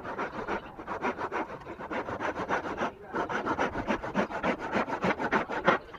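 Steel hand saw cutting through a block of wood in quick back-and-forth strokes, with a short pause about halfway.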